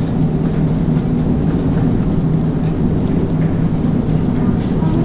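Steady, loud low rumble with a constant hum, the machinery noise that fills a concrete inspection gallery inside a hydroelectric dam.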